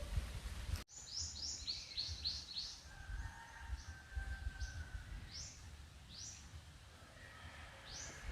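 Outdoor bird calls: short high notes, each falling in pitch, come in a quick run about a second in and then at wider intervals. Beneath them is a faint steady high whistle and low background noise.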